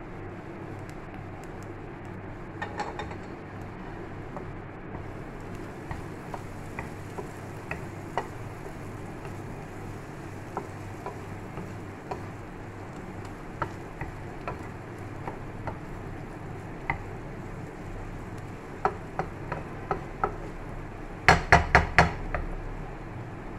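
Wooden spatula stirring and scraping a thick masala in a nonstick frying pan, with light clicks scattered through and a steady hiss beneath. Near the end, four or five sharp knocks in quick succession as the spatula is struck against the pan.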